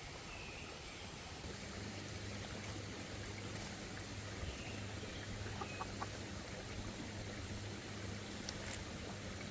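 Steady outdoor hiss with a low, even hum that comes in about a second and a half in, and a few short, faint bird chirps.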